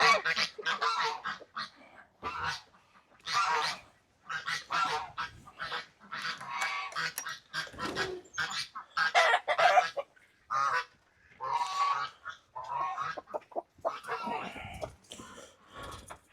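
Farm poultry in the flock calling, many overlapping pitched calls coming in runs of one to two seconds with short gaps between.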